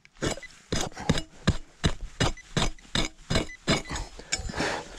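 Short-handled pick-mattock chopping into hard, dry soil, a quick steady series of about a dozen dull strikes, roughly three a second.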